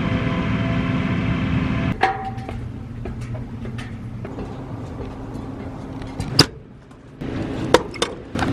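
A vehicle engine running steadily, then after an abrupt change about two seconds in, a quieter running hum with scattered sharp clicks and knocks, one loud knock about six seconds in.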